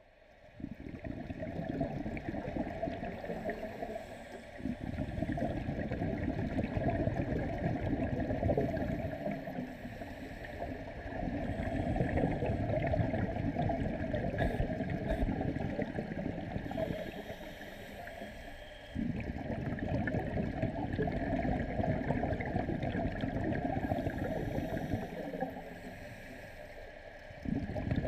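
Scuba diver breathing underwater on a regulator: rumbling, gurgling exhalation bubbles in long stretches, with quieter spells between breaths every several seconds.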